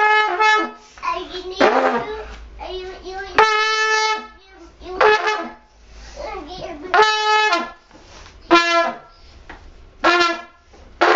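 A toy Christmas horn blown in a string of short honks, about seven blasts on one steady note. Most last under a second, and the longest, a few seconds in, runs about a second.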